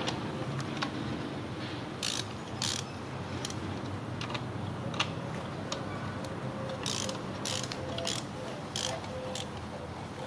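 Small hand ratchet clicking in irregular strokes as it turns out the bolts holding the plastic thermostat housing.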